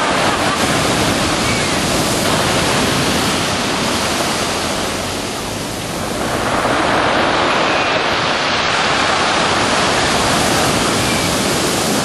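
Sea waves breaking on a pebble beach, their foam washing up and draining back between the stones in a steady rushing wash. The wash eases about halfway through, then swells again as the next wave comes in.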